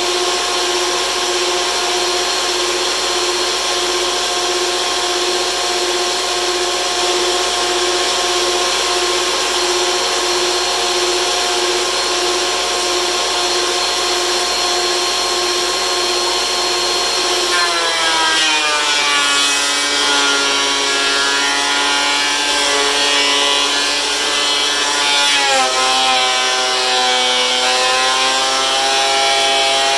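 DeWalt benchtop thickness planer running with a steady whine. A little over halfway in its pitch drops as a board feeds into the cutterhead and the motor labours under the cut, and it drops a little further a few seconds later.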